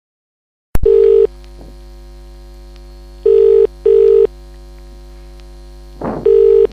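Telephone ringing tone heard down the line by the caller: a click, then a low double 'ring-ring' tone repeating about every three seconds over a steady line hum, with a short crackle just before the last ring.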